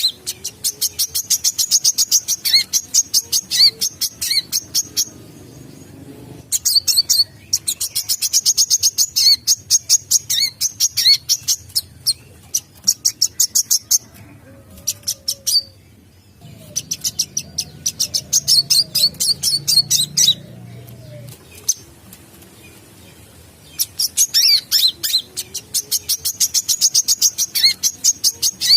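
Sunbird song: fast, high, ticking twitters delivered in four bouts of about five seconds each, with short pauses between them.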